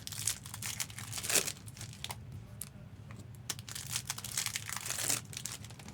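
Trading card pack wrappers crinkling and tearing as packs are opened and handled, in irregular rustles and crackles, with louder bursts about a second and a half in and again near the end.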